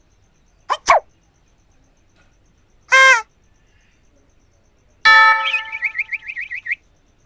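Short cartoon comedy sound effects played one after another from a sound-effects website preview. First two quick squeaky pitch glides, then a short honk-like pitched tone, then a longer tone with a fast warbling wobble that fades out.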